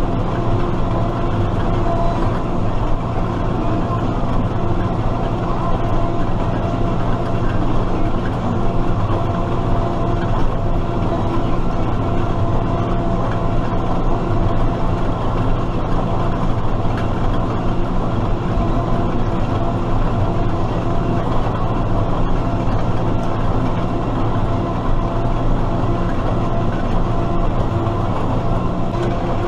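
Case IH Maxxum MX100C tractor's diesel engine running steadily at a constant speed, a continuous drone of engine tones with no change in pitch.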